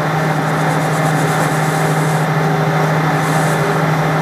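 Metal lathe running steadily with a strong, even hum, its tool cutting the spinning threaded end of a steel bar.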